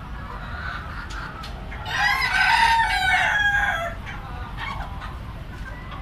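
A rooster crowing once, a loud call about two seconds long in the middle, with hens clucking around it.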